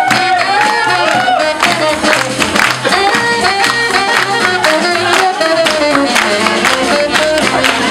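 Small live swing jazz band playing: saxophone-led melody lines over a steady drum beat, with keyboard.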